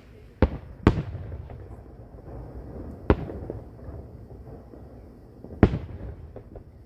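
Aerial fireworks shells booming at a distance: four sharp bangs, two close together right at the start, one about three seconds in and one near the end, each trailing off in a short echo.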